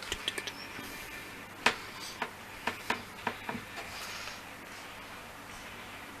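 Light clicks and taps of a snap-together plastic model kit being handled, a string of sharp ones in the first half with the loudest about two seconds in.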